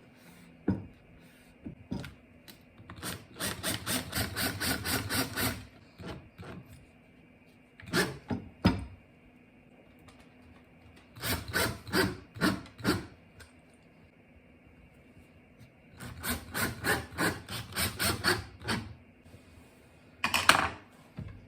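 A hand tool rubbing back and forth on wood, in four runs of even strokes about four or five a second, with a few single knocks between the runs.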